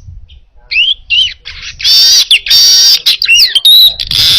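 Manyar (weaver bird) singing energetically: a few quick upward-sweeping chirps, then loud, harsh buzzing trills broken by more chirps.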